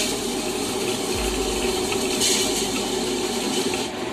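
Tabletop wet grinder running, its stone rollers turning in the steel drum and grinding soaked idli rice with water: a steady wet sloshing and grinding noise.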